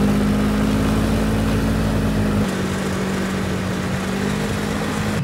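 Snowmobile engine running steadily as the machine rides over snow. About halfway through the deepest rumble drops away and its note steps slightly lower.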